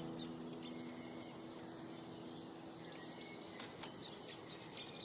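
Small songbirds chirping and twittering, with many short high notes and quick sweeping calls. A soft held musical chord fades out in the first couple of seconds.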